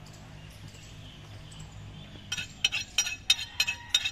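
Sharp metallic clinks in a quick rhythm, about four strikes a second, beginning a little over two seconds in: a butcher's knife striking metal. Before them there is a low steady hum of market background.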